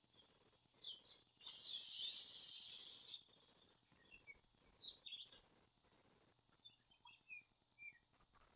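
A short burst of hiss lasting about two seconds, starting about a second and a half in, with faint scattered bird chirps through the rest.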